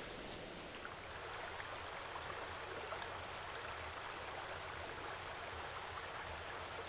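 Faint steady hiss with a low hum underneath: the background noise of the recording, with no other sound.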